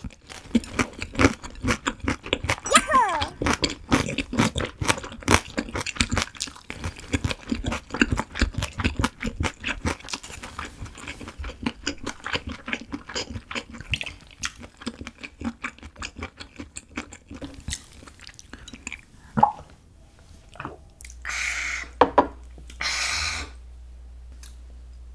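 Close-miked chewing of a mouthful of Korean steamed stingray (gaori-jjim): a dense run of sharp mouth clicks that goes on for about twenty seconds, then thins out. Near the end come two short rushes of noise.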